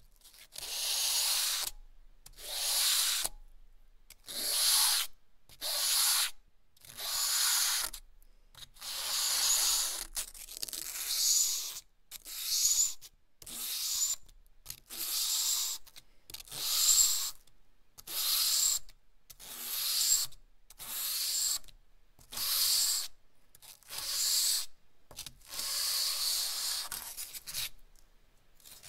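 A lump of potato charcoal rubbed across smooth 220 g/m² paper in repeated scratchy strokes, about one every second and a half with short pauses between them.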